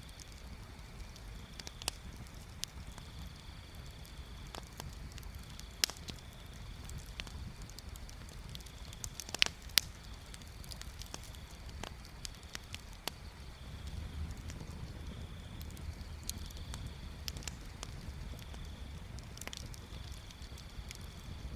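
Wood bonfire crackling: scattered pops and snaps, the sharpest about six seconds in and a quick cluster near ten seconds, over a steady low rumble. A faint high trill comes and goes behind it.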